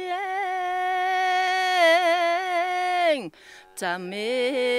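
A solo voice singing unaccompanied, holding one long ornamented note that falls away about three seconds in; after a brief breath a new phrase starts at a lower pitch.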